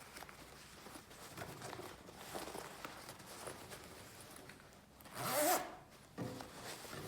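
Zipper on a reusable fabric dust bag for a Makita VC2512L vacuum being worked, amid soft rustling of the bag. The loudest zip comes about five seconds in.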